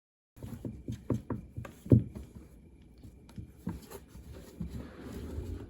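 A quick, irregular run of light taps and knocks, the loudest about two seconds in, then a softer rustling.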